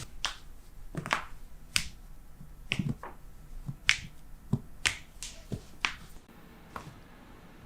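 A series of about ten sharp cracking pops at irregular intervals: joints cavitating under chiropractic adjustments.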